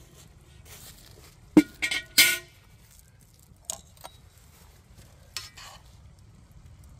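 Metal utensils and cookware clinking: a quick cluster of sharp clinks that ring briefly, about one and a half to two and a half seconds in, then a few lighter clicks later as noodles in a steaming wok are handled with metal tongs.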